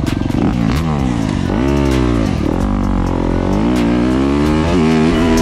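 Yamaha dirt bike's engine accelerating hard as the rider pulls away, its pitch climbing and dropping about four times as it shifts up through the gears.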